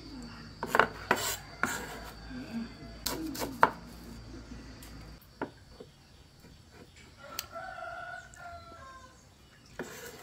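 Several sharp knocks and scraping handling sounds in the first half, then a rooster crows once, about seven seconds in.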